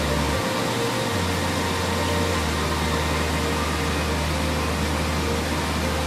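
Steady rush of a waterfall under soft relaxation music, whose long low notes change every second or two.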